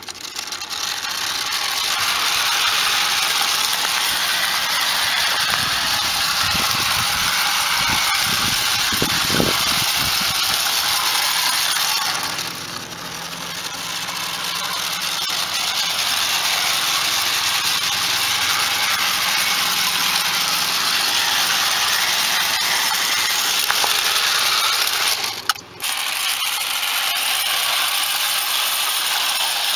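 Small model locomotive running along metal garden-railway track, with a steady whirring rattle from its mechanism and wheels on the rails. There are a few low thumps about six to ten seconds in, and the sound dips briefly twice.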